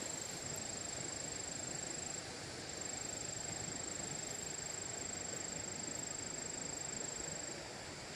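Outdoor rural ambience: a constant rushing hiss, with a steady high-pitched whine over it that drops out twice briefly.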